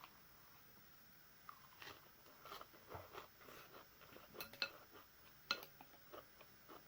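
Faint eating sounds: soft chewing with scattered light clicks of utensils against a bowl, and two sharper clinks about four and a half and five and a half seconds in.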